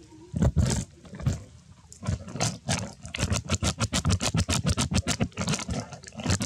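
A macaque giving harsh, noisy calls in a rapid run of pulses, about five or six a second, after a few single calls at the start.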